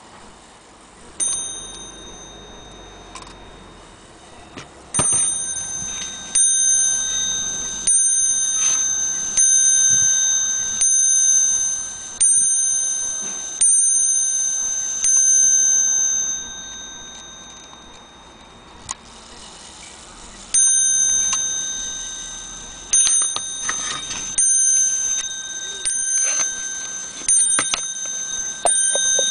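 An FHS mantle clock movement striking: its hammer hits a bell again and again, about one blow every second and a half, each ringing out clear and high and fading before the next. The strikes pause briefly past the middle, then start again.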